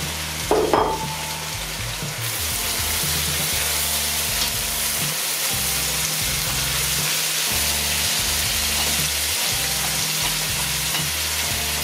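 Garlic and carrot frying in a pan of sunflower and olive oil, a steady sizzle that gets louder about two seconds in. There is a brief clatter about half a second in.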